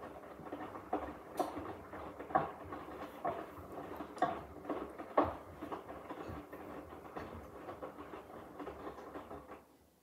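Hoover H-Wash 300 Plus front-loading washing machine in its wash phase: the drum tumbling wet laundry through water, with sloshing and soft thuds of clothes dropping about once a second. The sound stops near the end as the drum comes to rest.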